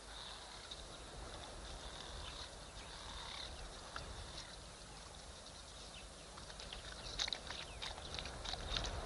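African wild dogs lapping water: an irregular run of sharp clicks, several a second, starting about three-quarters of the way in, over a faint steady high-pitched background chorus.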